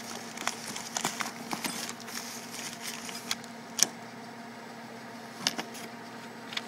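Steel quick-change tool holders clinking against each other and plastic wrapping rustling as one is handled in a cardboard box, with a few sharp knocks. A steady low machine hum lies underneath.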